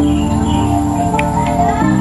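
Background music of held, sustained chords, changing to a new chord near the end.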